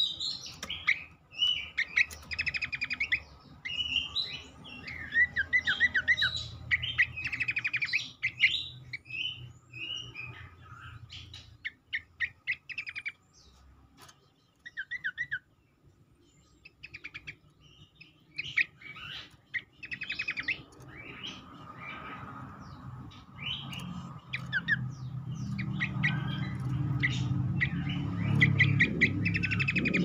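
A caged cingcoang babbler singing in bursts of quick chirps and short falling whistled note runs, with a few pauses. A low rumble builds under the calls in the last few seconds.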